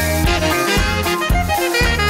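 Background music: upbeat swing-style instrumental with brass and a steady beat.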